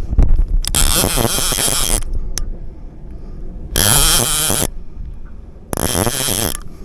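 Fishing reel being cranked in three bursts of about a second each, reeling in a hooked fish. Between the bursts there is a low hum.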